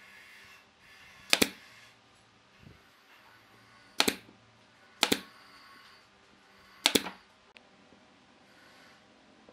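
Pneumatic nail gun firing four times into a wooden chair frame, each shot a sharp double crack, the first about a second in and the last about two-thirds of the way through.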